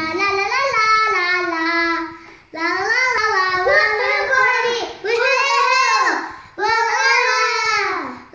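A child singing a wordless 'la la la' tune in four sung lines with short breaks between them, the last two sliding down in pitch at their ends.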